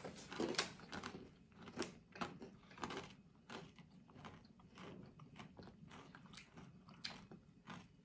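Crunchy spicy snack being chewed close to the microphone: a run of irregular crisp crunches.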